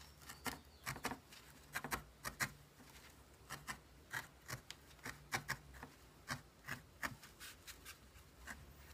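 Felting needle stabbing wool into a needle-felted head on a foam pad: faint, irregular short clicks, about two or three a second, with a couple of brief pauses.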